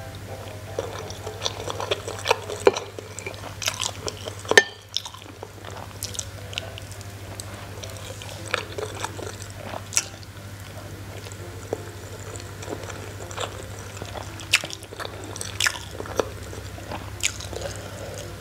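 Close-miked chewing and biting of a soft rice ball (nasi kepal), with wet mouth clicks and smacks scattered throughout over a steady low hum.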